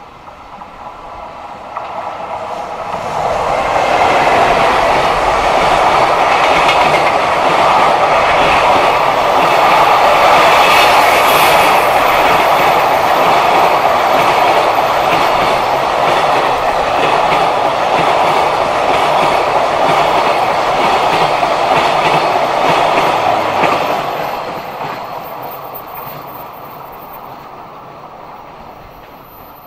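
Freight container train hauled by a JR Freight EF210 electric locomotive passing close by, its wheels clattering on the rails. The sound builds over the first few seconds, holds loud and steady while the wagons go by, and fades away after about 24 seconds.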